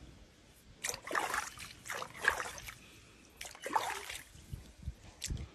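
Pool water splashing and trickling as a hand scoops it over a jaguar's back, in three splashes about a second apart.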